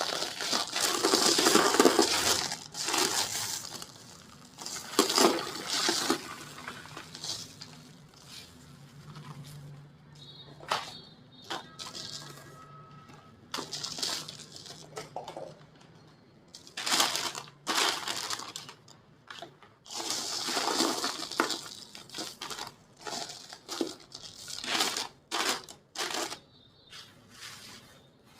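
Dry, brittle white cement shapes being crushed and crumbled, giving irregular crisp crunches and crackles. Some crunches run for a second or two, others are short single snaps with pauses between.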